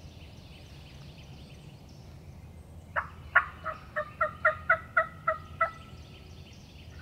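Turkey yelping: a run of about ten sharp, evenly spaced yelps, about three a second, starting about three seconds in and stopping shortly before the end, over faint songbird chatter.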